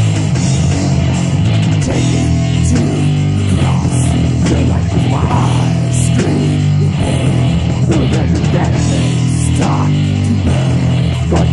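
Thrash metal instrumental passage: distorted electric guitar riffing over bass guitar and drums, loud and unbroken, with no vocals.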